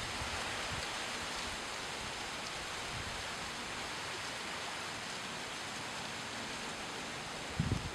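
Steady even outdoor hiss, with a brief cluster of low thumps near the end; no bird calls.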